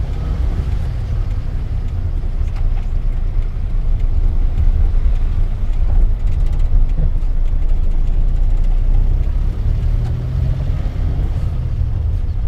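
A 1984 Daihatsu Hijet 1000 van heard from inside its cab while driving slowly, its engine and road noise making a steady low rumble. The rumble grows louder about four seconds in.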